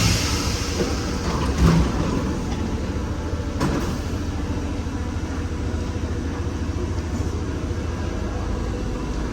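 MF 77 Paris Métro train standing at the platform with a steady low hum. A hiss of air fades out at the start, then a dull thump comes about two seconds in and a sharp clunk about four seconds in.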